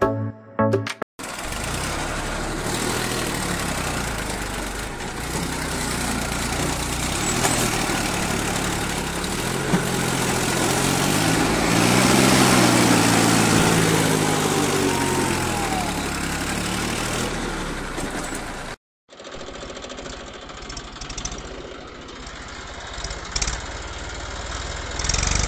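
Tractor engine running steadily, its pitch rising and then falling about halfway through, like a tractor passing close by. It cuts off suddenly, and a quieter engine sound follows.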